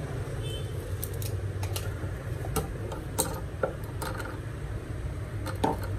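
Handling noise: scattered light clicks and taps at irregular intervals, over a steady low background hum.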